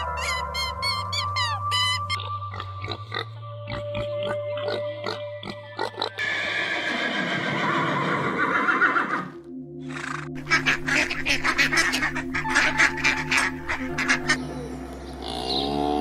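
Background music with farm-animal sounds laid over it, a horse among them. Quick rhythmic clicks come in the second half, and a long call with bending pitch starts near the end.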